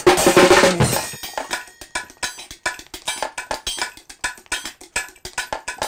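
A loud burst of drumming music, then from about a second in a quieter run of light, quick taps and clinks: a marionette's miniature drum kit of tin cans and small cymbals being played.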